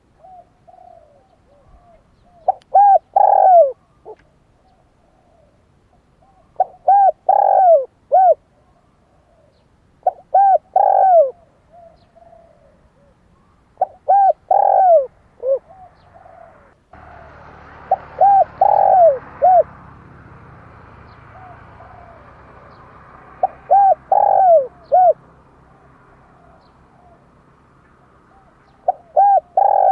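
Dove cooing: loud phrases of several quick coos, repeated about every four seconds, with softer coos between. A faint steady hiss comes in suddenly about halfway through.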